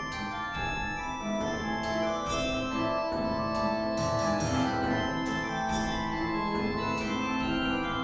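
Background music: sustained organ-like keyboard chords with a steady pulse of notes.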